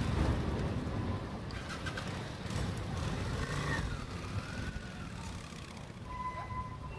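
Street-traffic rumble, loudest near the start as a motorcycle rides close past, while a vintage tram rolls out slowly over street rails. A short thin high tone comes near the end.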